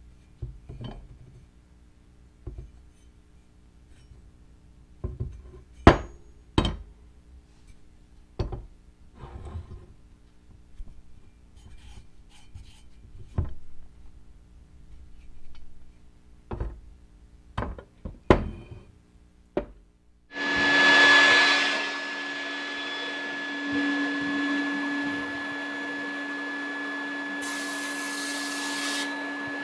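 Scattered knocks and clacks of hard parts being handled. About twenty seconds in, a motor-driven shop machine starts and runs steadily with a constant whine and hiss, and near the end a sharper hissing blast joins it twice.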